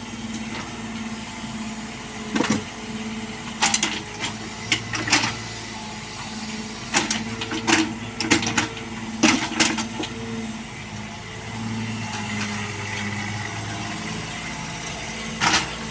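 Bobcat 322 mini excavator's diesel engine running steadily, with sharp clanks and knocks scattered irregularly over it, several coming in quick pairs.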